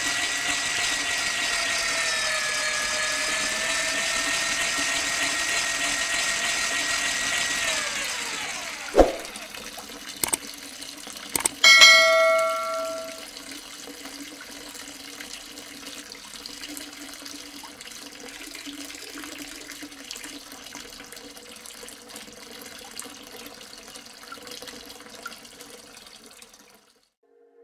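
A small electric motor driving a toy water pump whines steadily at a high pitch, then winds down and stops about eight seconds in. A knock, a couple of clicks and a short bell-like ring follow, then water trickles quietly into a puddle until it fades out near the end.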